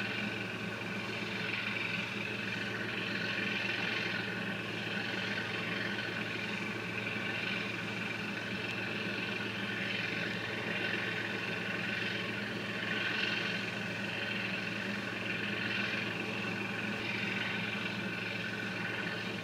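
Steady engine drone with a hiss over it, unchanging in level.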